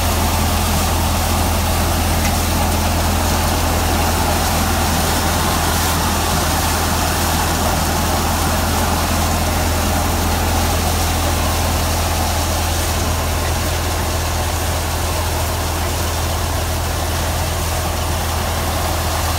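Tractor-driven Jangid threshing machine running steadily while dry crop is fed in, powered off the power take-off of a Mahindra 475 DI diesel tractor: a strong constant low hum with a dense, even whir over it.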